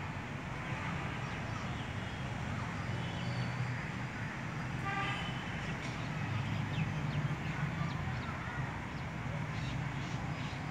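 Steady low outdoor background rumble, with a brief high-pitched tone about five seconds in.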